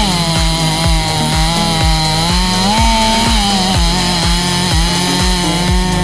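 Stihl MS 500i fuel-injected two-stroke chainsaw running at high revs while cutting wood with a chain freshly sharpened with a round file; the engine pitch dips and rises as the cut loads it. A regular low thump about twice a second runs underneath.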